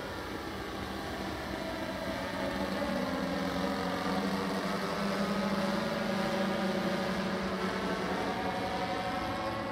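The OctoPorter quadplane drone's propellers running in flight during its transition between rotor-borne hover and wing-borne flight. Several propeller tones slowly shift in pitch, and the sound grows louder toward the middle.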